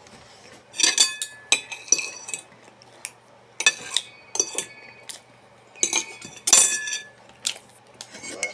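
Eating utensils clinking and scraping against a dish: about ten irregular, sharp clinks, some with a brief ringing tone.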